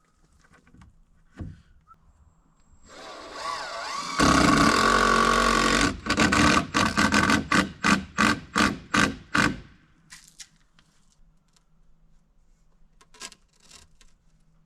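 Cordless drill driving a deck screw into framing lumber: the motor winds up, runs steadily for about two seconds, then is pulsed in about ten short bursts to seat the screw. A few faint knocks come before and after.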